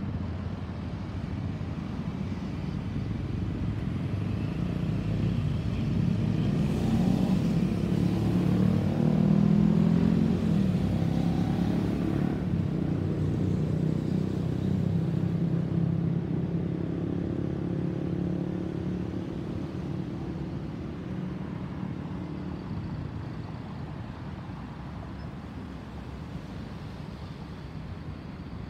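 Boeing 737-800 flying over, its twin CFM56-7B turbofan engines heard as a low jet rumble. It swells to its loudest about ten seconds in, then slowly fades away.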